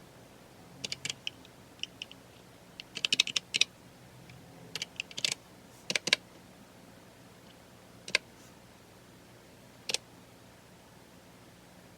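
Computer keyboard typing: short, uneven runs of keystrokes, then two single key clicks a couple of seconds apart near the end.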